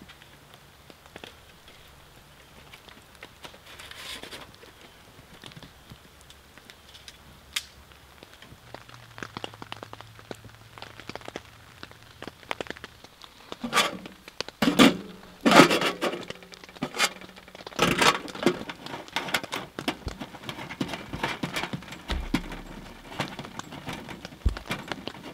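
Rain pattering on a tent's nylon fly, with scattered clicks and taps. About halfway through the patter turns denser and louder.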